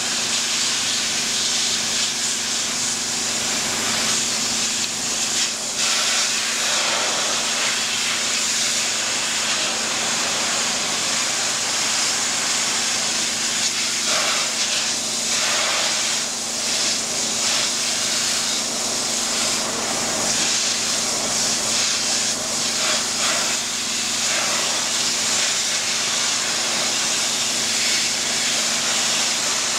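Densin high-pressure washer jet spraying water onto metal grating: a steady hiss of spray, its texture shifting a little as the jet moves over the bars, over a steady low hum.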